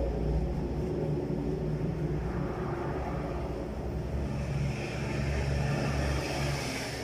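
Steady low mechanical rumble, with a brighter hiss coming in about halfway through.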